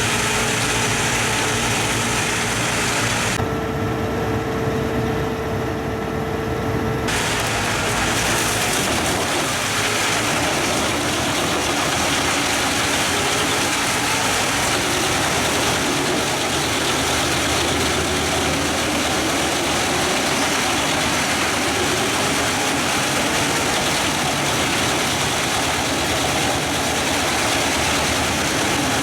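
Pezzolato PTH 1400/1000 drum wood chipper running, powered by its Scania truck engine: a loud, continuous machine noise. A few seconds in, the noise turns for a few seconds to a steadier, duller hum with a held tone, then the full noise returns.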